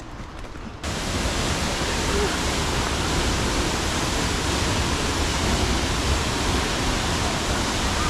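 Steady rushing noise of a waterfall and the rocky stream below it. It cuts in abruptly a little under a second in, after a quieter moment.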